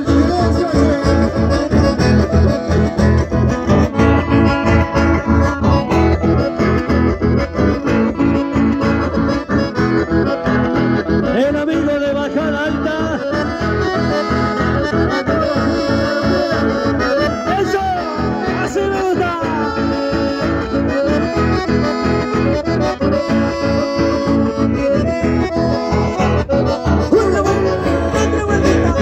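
Live band music: two button accordions with guitars, playing with a steady dance beat.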